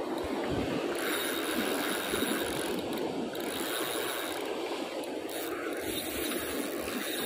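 Fishing reel ratcheting and whirring as a hooked fish is played from a sea cliff, over steady surf and wind on the microphone.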